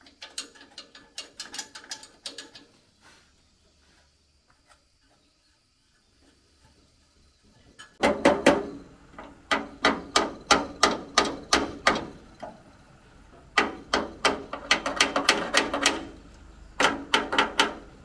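Quick runs of sharp metallic clicks with a little ringing, from hand work at the steel housing and pulley shaft of a rice huller. A faint short run comes first, then louder runs from about halfway on.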